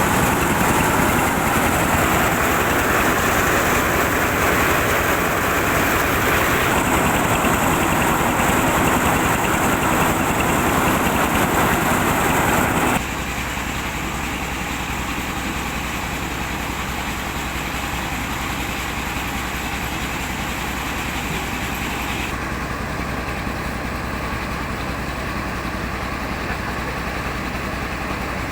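Engine and rice-milling machinery running steadily, with a loud hissing whir. About halfway through the sound drops suddenly and becomes quieter and duller.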